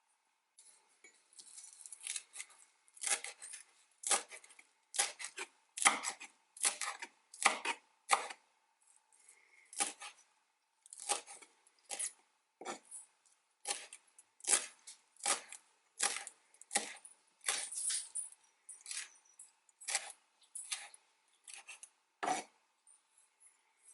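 Nettles being cut with a blade: a steady series of sharp cutting strokes, about one or two a second.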